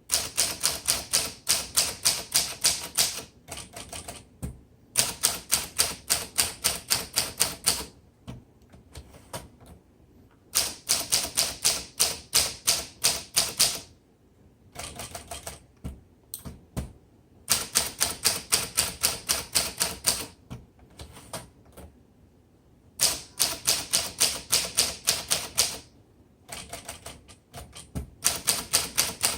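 A 1941 Corona Sterling manual typewriter being typed on quickly: its typebars strike the platen in runs of about six keystrokes a second, each run lasting a few seconds, with short pauses and a few lighter clicks between runs.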